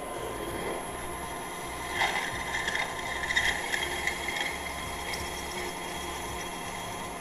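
Ellis 9400 floor drill press with its variable-frequency-driven motor running steadily while a 5/16-inch twist drill cuts into a metal plate under power down-feed. A louder, scratchy cutting noise comes in about two seconds in and eases off after about four and a half seconds.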